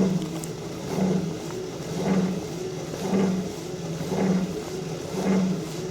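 Helix HLT 2500 lateral trainer's left pedal grinding and vibrating in a rhythmic pulse that swells about once a second, each time the pedal passes through the 3 to 9 o'clock part of its stroke. It is a fault that was not there in the machine's first days of use.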